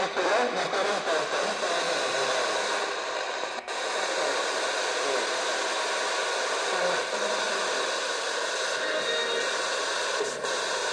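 FM radio static hissing from a portable receiver's speaker as it is tuned between stations, stepping past 89.6–89.9 MHz with no signal. The steady rush cuts out briefly about three and a half seconds in.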